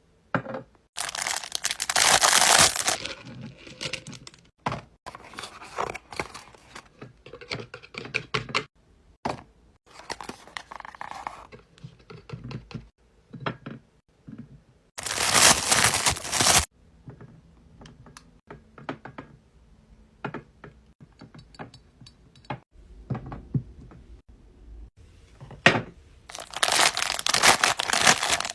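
Restocking handling sounds: plastic packaging crinkling and tearing, and containers set down with knocks and thunks. Three louder rushing noises of a second or two each come near the start, about halfway through, and near the end.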